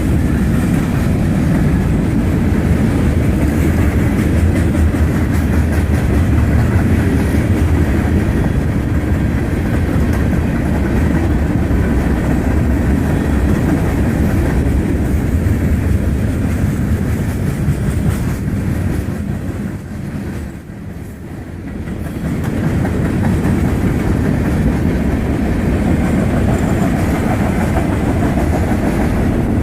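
Freight train cars rolling past on the rails, a steady rumble with wheels clacking over the rail joints; the sound eases briefly about two-thirds of the way through, then comes back as strong.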